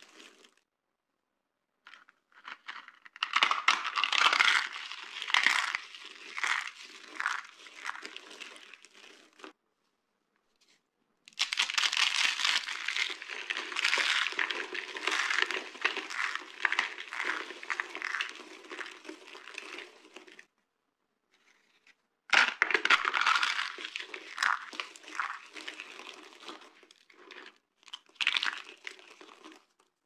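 Dry soap chips and shards crunching and crackling as hands scoop and squeeze them. It comes in three long spells with silent gaps between.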